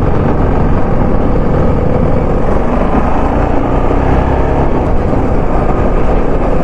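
TVS Apache RR 310's single-cylinder engine running steadily while the motorcycle is ridden at about 30 km/h over a rough dirt road, heard from the rider's seat as a loud, dense low rumble.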